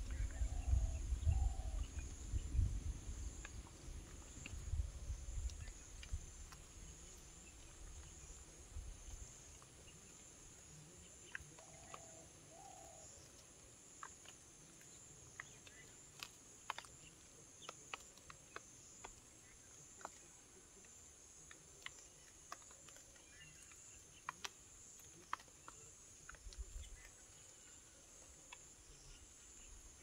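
Irregular sharp clicks of parakeets cracking and picking sunflower seeds with their beaks, over a steady high drone of insects. A low rumble fades out over the first several seconds.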